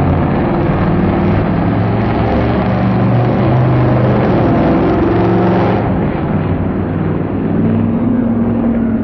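Drag-race car engines at wide-open throttle as a 1969 Camaro and a mini pickup run down the strip, loud and continuous. The sound eases slightly about six seconds in.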